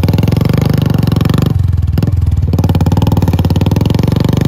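Royal Enfield Bullet 350's single-cylinder engine running hard under load as the bike is ridden over loose stones, with rapid, even firing pulses. Its sound dulls briefly about a second and a half in, then picks up again.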